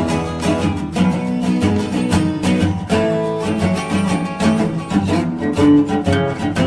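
Instrumental acoustic guitar music in a blues style, with plucked and strummed notes.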